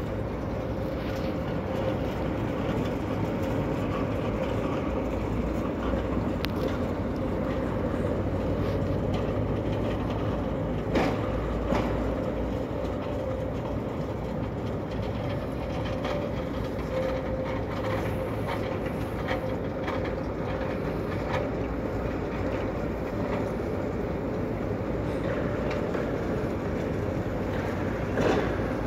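Train rolling past slowly: a steady rumble with a constant hum and scattered clicks of wheels over the rails.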